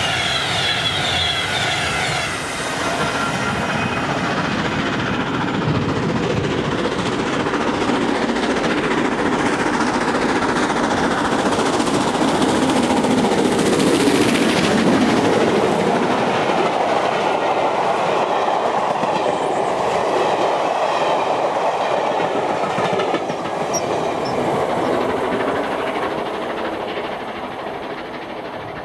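The tail of a Class 390 Pendolino electric train passing in the first two seconds or so, then the LMS Princess Coronation class steam locomotive Duchess of Sutherland climbing the bank with its carriages: the sound swells to its loudest as the engine passes about halfway through, with the clatter of the carriage wheels on the rails, and fades away near the end.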